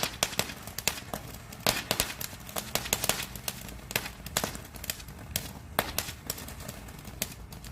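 Firecrackers going off in a fast, irregular string of sharp pops and cracks, with a few louder bangs among them.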